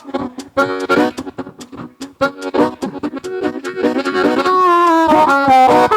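Blues harmonica imitating a train: short rhythmic chugging chords, then a long held chord in the last second and a half.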